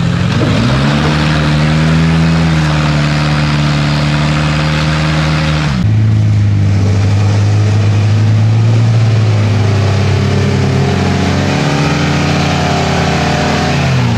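A lifted Suzuki Samurai's engine revs up and holds at steady revs under load as it crawls over the obstacle. After an abrupt cut, a lifted Toyota pickup's deeper engine works under load, revving up about two-thirds of the way through and easing off near the end.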